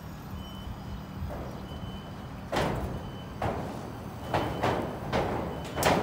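Footsteps clanking on steel rebar mesh and metal floor decking, irregular knocks about every half second to a second that start a couple of seconds in, over a steady low hum.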